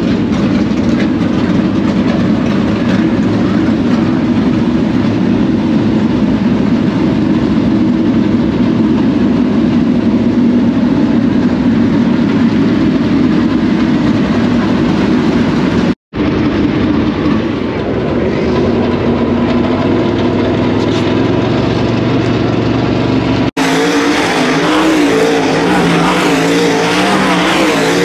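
Dirt late model race cars' V8 engines running loudly and steadily in the pits. Near the end, cars on the dirt track rev up and down as they go through a turn.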